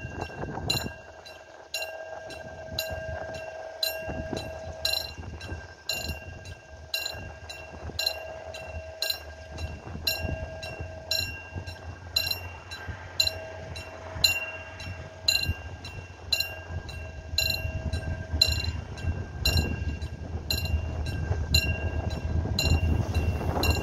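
Level crossing warning bell ringing steadily, about two strikes a second, as a diesel locomotive hauling a two-car Mugunghwa-ho train approaches. The train's low rumble grows louder through the second half.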